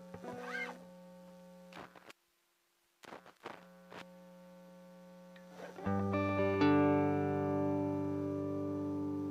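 Electric guitar played through a pedalboard of effects pedals. Held notes and a few clicks give way to a brief dropout a little after two seconds, then a chord rings out about six seconds in and sustains.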